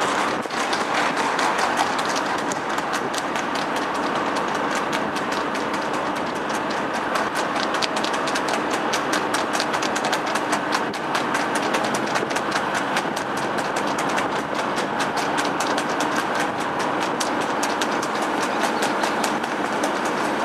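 Hooves of two harness-racing trotters striking wet tarmac at a fast trot: a quick, steady run of clicks over the road and wind noise of the moving camera vehicle.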